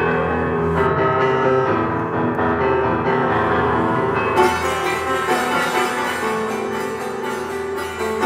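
Improvised piano with synthesizer, mostly sustained notes layered over a low drone; about four seconds in, a bright, hissy electronic texture joins.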